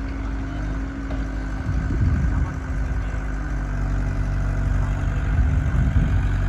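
Heavy diesel engine running steadily with a low hum, rising in louder surges about two seconds in and again around five to six seconds.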